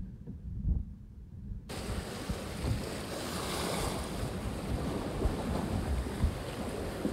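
Wind buffeting the microphone and sea waves washing against a small boat, as a steady rushing noise with gusty low rumble. For the first couple of seconds only the low rumble is heard.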